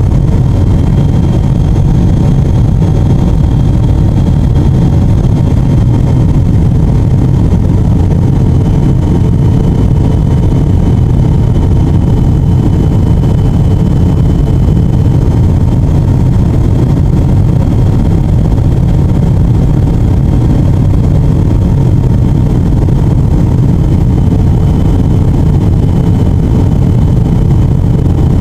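Airplane cabin noise in flight: a steady, loud rumble with a few faint, steady whining tones above it.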